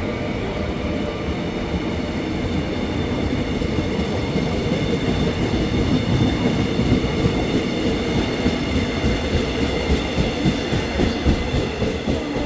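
Mugunghwa-ho passenger coaches rolling past on the near track: a steady rumble with a thin whine that fades over the first few seconds. From about halfway the wheels clack over the rail joints in a regular beat, a couple of times a second.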